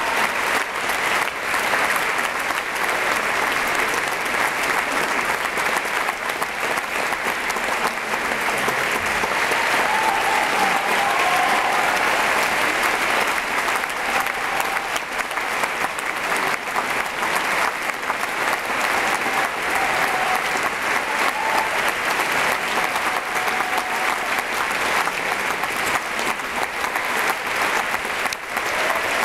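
Large audience applauding steadily, a dense, even mass of many hands clapping.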